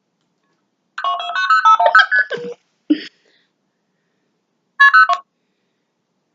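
Electronic telephone melody of quick stepping beeps heard over a phone line, about a second and a half long, then a short blip and a brief second burst of beeps about five seconds in.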